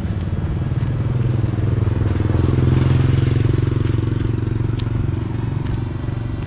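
A motorcycle passing by, its engine getting louder toward the middle and then fading away.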